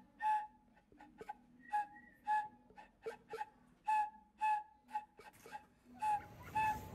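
A whistled tune of short, clipped notes, about two a second, mostly on the same pitch, over light clicking percussion. Steady outdoor wind noise comes up near the end.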